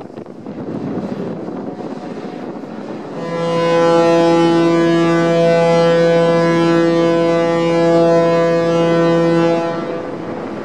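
Ferry's horn sounding one long, steady blast of about six and a half seconds, starting about three seconds in, with wind on the microphone around it.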